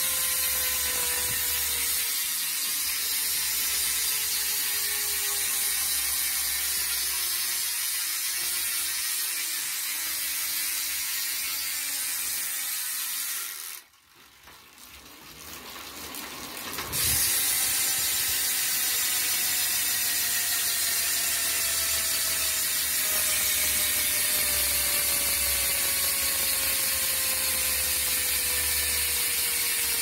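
Nine-pawl, 108-engagement bicycle freewheel buzzing as the rear wheel coasts: a fast, even ratcheting that slowly drops in pitch as the wheel slows. About 14 seconds in it fades away almost to nothing, then about three seconds later it comes back at full strength and slows again.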